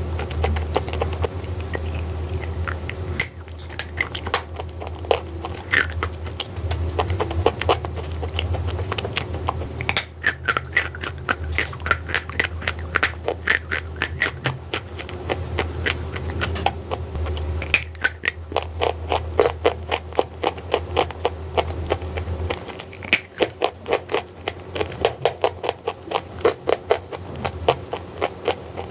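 Someone chewing crunchy chalk and clay close to the microphone: dense, rapid crunches and crackles, several a second. A low hum sits underneath and cuts off about three quarters of the way through.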